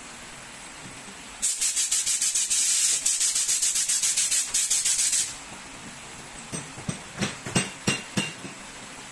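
Aerosol spray hissing onto the exposed gear train of a strapping tool's tension motor for about four seconds, the hiss fluttering rapidly, followed by several light metallic clicks and taps.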